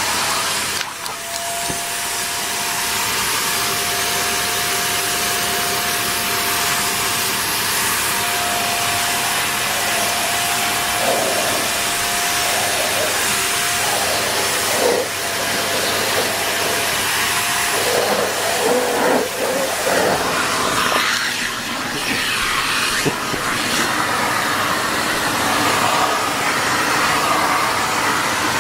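Vacuum cleaner running: a loud, steady rushing of air with a single held motor whine. About two-thirds of the way through, the whine breaks off and the rush turns uneven, rising and falling.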